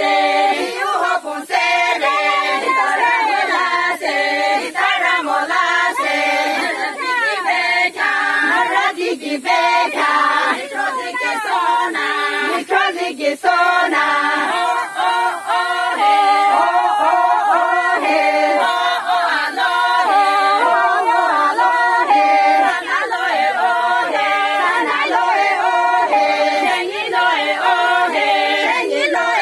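A group of women singing together unaccompanied, a continuous song with no instruments.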